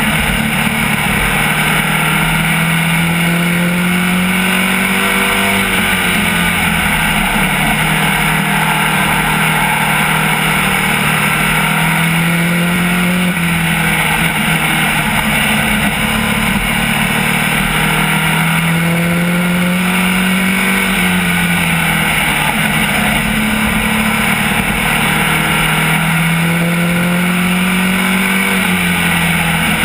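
SK Lite modified race car's engine heard from inside the cockpit at racing speed. Its pitch climbs for several seconds and then drops back, about four times, as the driver accelerates down each straight and lifts for the turns.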